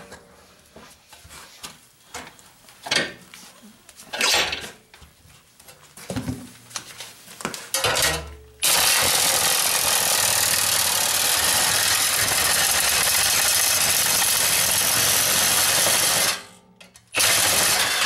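Milwaukee M18 Fuel Sawzall reciprocating saw with a metal-cutting blade cutting through thick sheet metal held in a bench vise: a loud, steady run of about eight seconds, a short stop, then cutting again near the end. Before the cut, a few scattered knocks.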